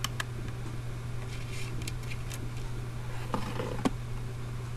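Scattered small clicks and taps of jewellery and a clear acrylic drawer unit being handled, over a steady low hum.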